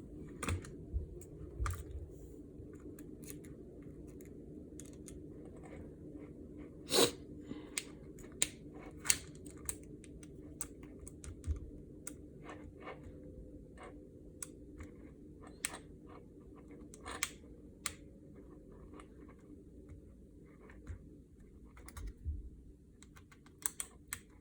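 Small screwdriver working a screw out of a plastic drone arm: scattered light clicks, taps and scrapes, the loudest about seven seconds in, over a steady low hum.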